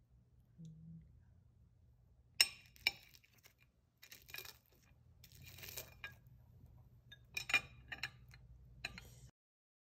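Tableware clinking during a meal: about seven sharp, separate clinks of utensils against dishes over a low steady hum, before the sound cuts off abruptly near the end.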